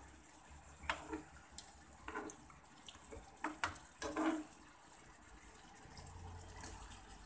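Metal tongs stirring sliced beef and vegetables through a watery sauce in a frying pan: wet sloshing and scraping, with several clacks of the tongs against the pan over a steady faint hiss.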